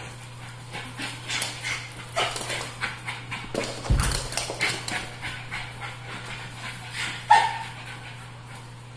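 Puppies playing on a tile floor: scuffling and panting, with a low thump about four seconds in and a single short yip, the loudest sound, a little after seven seconds.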